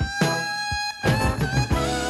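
Background music: a song with held melodic notes over drums and a steady beat.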